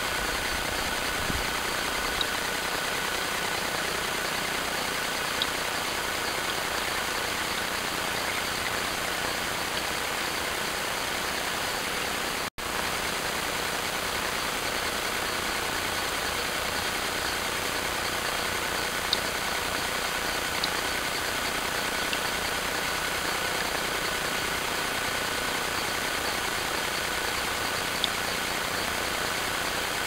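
Steady hiss from a trail camera's microphone and electronics, with a faint constant whine and a few faint clicks; the noise breaks off for an instant about twelve seconds in, where one clip is cut to the next.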